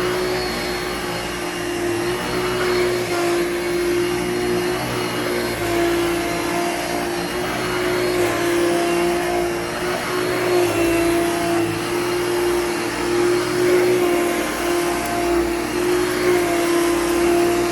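Hoover Dimension 1000 canister vacuum running: a steady motor whine over a rushing hiss of air, its pitch wavering slightly.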